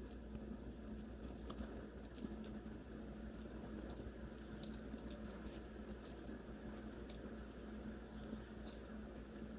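Faint handling sounds of hands and a crochet hook working cotton yarn: light scattered ticks and rustles as the extra starting chain is picked out, over a low steady hum.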